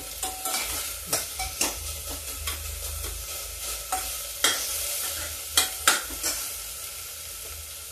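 Onions frying in oil and masala paste in a pressure cooker, sizzling steadily while a metal ladle stirs and scrapes against the pot. The scrapes and knocks come irregularly, sharpest around four and a half and six seconds in.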